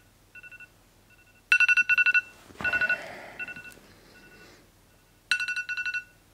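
Smartphone alarm going off: repeated groups of rapid high beeps, some groups loud and some faint, with a brief rustle about three seconds in.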